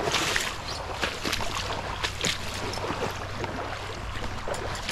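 Wading across a shallow creek: water sloshing and splashing around the legs, with scattered short clicks and knocks underfoot.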